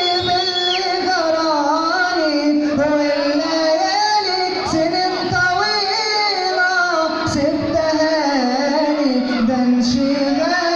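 A man singing a verse of an Arabic song in one continuous line, the pitch sliding and bending from note to note.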